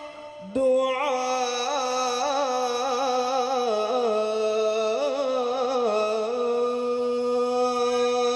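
A man's voice chanting solo into a microphone, with no instruments. After a breath about half a second in, he holds one long phrase: a steady low note with ornamented, wavering turns of melody above it.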